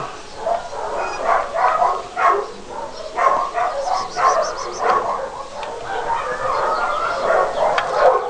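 Dog whining and yipping over and over, in short calls, with a brief run of rapid high chirps about four seconds in.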